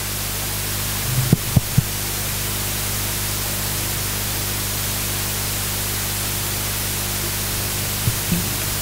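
Steady hiss and electrical hum from a public-address sound system, with a few faint short sounds about a second and a half in and again near the end.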